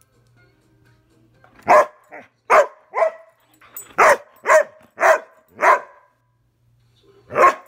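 Airedale terrier barking in play: after a quiet start, a run of about eight short barks, then a pause and one more bark near the end.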